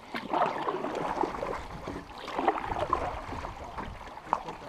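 Canoe paddle strokes in a shallow river, water gurgling and trickling around the blade and hull in short bubbly spurts.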